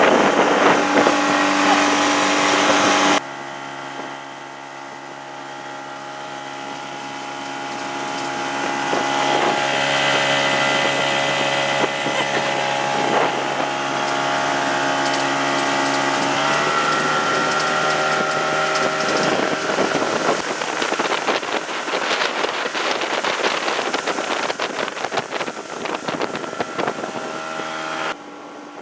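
Small river boat's outboard motor running steadily, with wind on the microphone; its pitch steps up slightly about halfway through.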